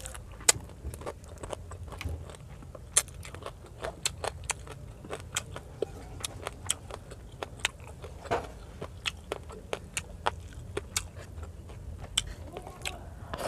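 Close-miked eating sounds: a person chewing rice and fried fish, with many sharp, irregular mouth clicks and smacks over a low steady hum.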